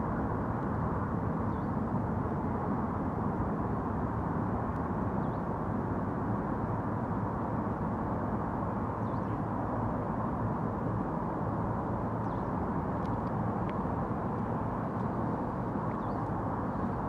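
Steady outdoor city ambience: a constant hum of distant traffic, even in level throughout, with a few faint high chirps over it.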